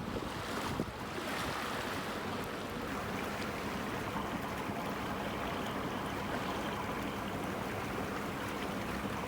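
Water rushing along the hull of a sailing yacht moving fast through a tidal channel, with wind buffeting the microphone and a faint, steady, low hum from the yacht's motor underneath.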